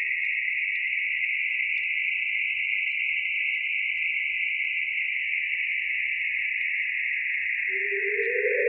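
Sonification of Saturn's rings made from Cassini images and Chandra X-ray data: a steady hissing band of sound in the upper-middle range, with scattered faint clicks. A lower, deeper band fades out just after the start and comes back, rising, near the end.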